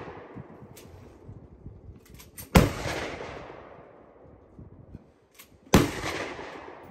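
Two gunshots about three seconds apart, each followed by a long echoing tail, with a few faint clicks before each.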